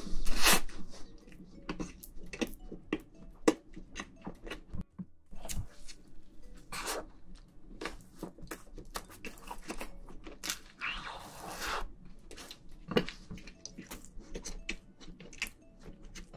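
Close-miked chewing of soft sponge cake dressed up as a scrub sponge: a run of wet mouth clicks and smacks, with a louder noisy swell just after the start and another about eleven seconds in.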